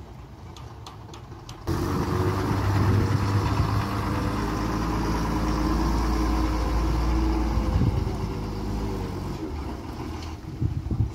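Diesel engine of a TNSTC state-transport bus, starting suddenly about two seconds in, running loud and steady as the bus swings round the hairpin bend close by, then fading as it pulls away.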